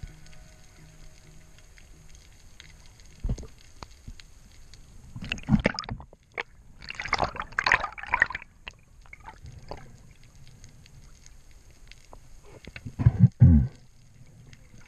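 Water gurgling and rushing over an underwater camera in bursts, with a short muffled thump a little over three seconds in and two heavy muffled thumps near the end.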